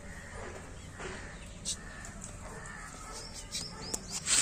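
Birds calling, with quick high falling chirps in the last second or so. Near the end there is a sharp click as the plastic cap is twisted off a bottle of powder.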